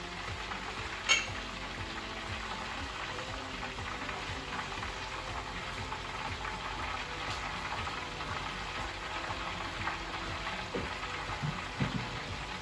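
Karela (bitter melon) frying in hot oil, a steady sizzle throughout. There is a sharp tap about a second in.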